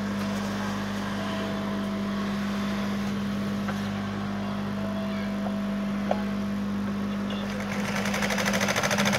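JUKI industrial sewing machine's motor humming steadily. About three-quarters of the way through, the needle starts stitching: a fast, even clatter that grows louder.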